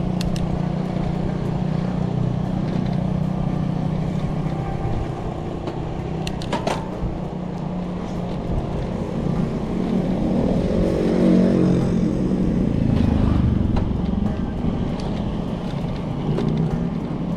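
A motor vehicle's engine running steadily, growing louder with its pitch shifting about ten seconds in, then easing off.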